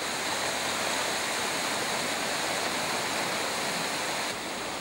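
Floodwater rushing steadily over overflowing lock sluices, a continuous noise of pouring water. Its level drops a little about four seconds in.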